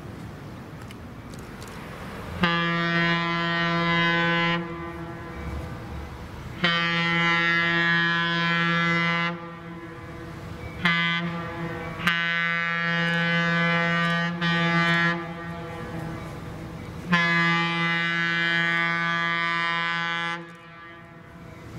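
Diesel locomotive air horn sounding the long, long, short, long grade-crossing signal, with the last blast held long and then one more long blast.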